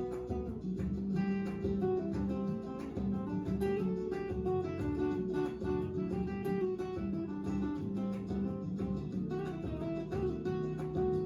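Music of acoustic guitar, with plucked notes and strummed chords.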